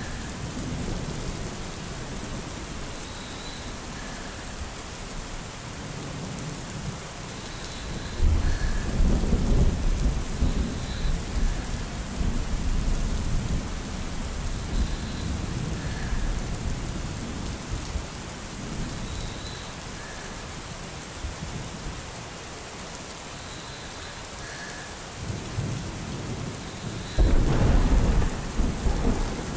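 Steady rain with thunder rumbling twice, once about eight seconds in and again near the end, each roll starting suddenly and dying away over a few seconds.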